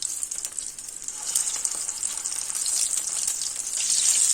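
Egg-coated noodle kababs shallow-frying in hot oil on a flat tawa, a steady crackling sizzle that swells about a second in and again near the end.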